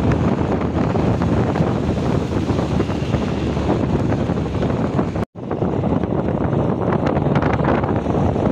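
Wind rushing over the microphone at the side window of a moving Mitsubishi L300 minibus, mixed with steady road noise. The sound cuts out for an instant about five seconds in.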